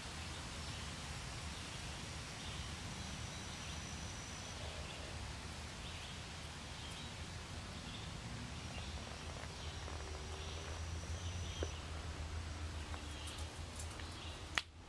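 Outdoor ambience: a steady low rumble and hiss with faint, scattered bird chirps, and a sharp click near the end.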